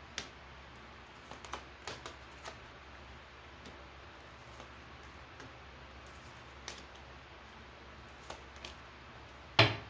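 Tarot cards being handled and laid down on a table: scattered light clicks and taps, with one louder knock near the end.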